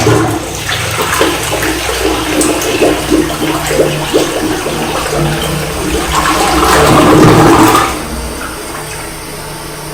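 Toilet flushing forcefully, water rushing out of the tank into the bowl. The rush grows to its loudest about seven seconds in, then falls off sharply a second later to a quieter steady flow.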